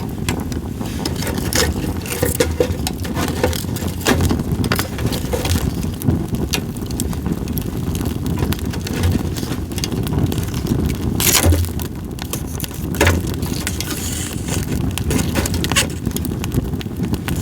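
Split sawtooth oak (kunugi) firewood burning in a campfire, crackling with irregular pops, two of them louder about two-thirds of the way through, over a steady low rush.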